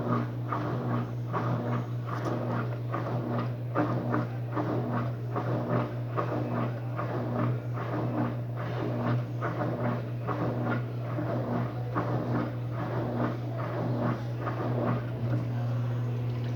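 Electrolux LTD13 13 kg washing machine running in the spin of its first rinse: a steady motor hum with a tone pulsing in an even rhythm, over irregular rattling and knocking.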